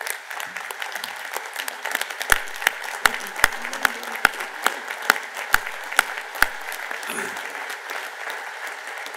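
A hall audience applauds steadily. From about two seconds in until past six seconds, a run of sharp, louder hand slaps close to the microphone, about two and a half a second, stands out over the crowd's clapping.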